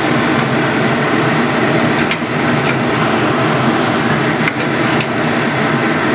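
Pot of liquid at a rolling boil, bubbling steadily, with a few light clicks of a metal slotted spoon against the pot as pieces are lifted out.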